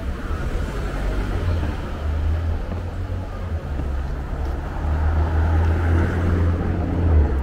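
City street traffic: a steady low engine rumble from vehicles passing close by.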